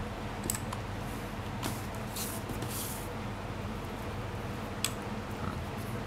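Faint handling noise: two soft rustles and a few light clicks over a steady low background hum.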